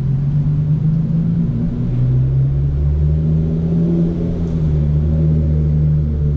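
Straight-piped Hyundai Genesis Coupe 3.8's V6 exhaust running at low engine speed as the car rolls along, a loud, low drone that rises and falls gently in pitch.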